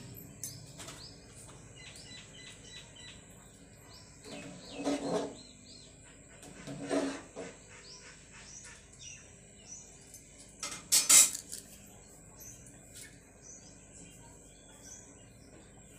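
Small birds chirping faintly in the background while cookware is handled at a gas stove: a dull knock about five seconds in, another about seven seconds in, and a sharp clatter about eleven seconds in, the loudest sound.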